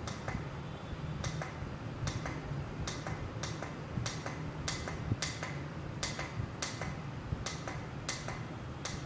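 Push-button key on an industrial washing machine controller's keypad clicking about twice a second as it is pressed over and over, stepping up the final spin time. A faint steady low hum lies under the clicks.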